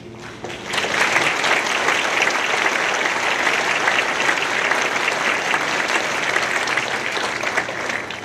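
Audience applause: many people clapping, swelling in about a second in and tapering off near the end, following the close of a children's choir song.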